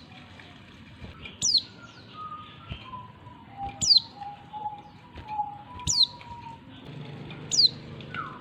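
Female oriental white-eye calling to a male: four sharp, high notes, each sliding quickly downward, spaced about two seconds apart. Softer, lower whistled notes run in the background between them.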